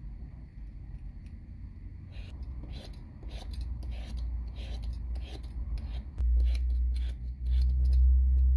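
Metal Y-peeler scraping strips of skin off a raw potato in quick strokes, about two a second, starting about two seconds in. A low rumble comes in about six seconds in and is the loudest sound.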